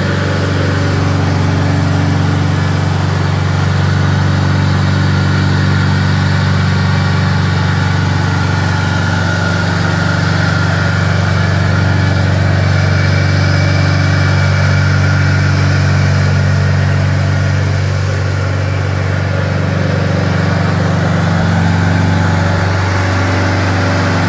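Small air-cooled engine of a homemade mini-crane running at steady revs, driving the hydraulic pumps as the machine travels.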